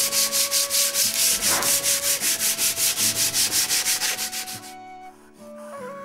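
A wooden drawer front being rubbed down by hand with a pad in quick back-and-forth strokes, about five a second, that stop about four and a half seconds in. A soft flute tune plays underneath and carries on after the rubbing stops.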